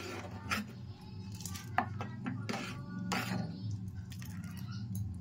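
Metal ladle stirring dal in an aluminium pot, knocking against the pot in a few sharp clinks.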